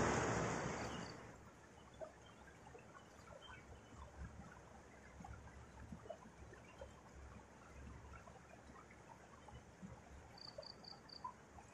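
Faint, scattered ticks of light rain falling on the stream bank, after a loud rush of noise that dies away in the first second. Near the end come four quick high chirps in a row.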